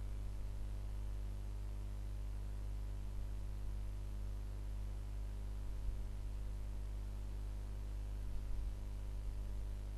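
Steady low electrical hum with faint hiss, unchanging throughout, with a couple of faint soft bumps about six and eight and a half seconds in.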